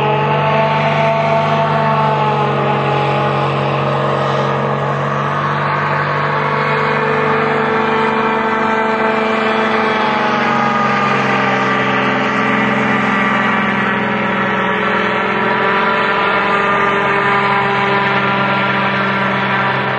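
Motorboat engine running at high speed across the river, a continuous loud drone whose pitch drifts slowly down and back up.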